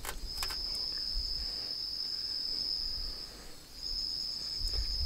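Night insects calling in a steady, high-pitched chorus that drops out briefly past the middle and then resumes. A couple of light clinks of a spoon in a metal bowl come near the start.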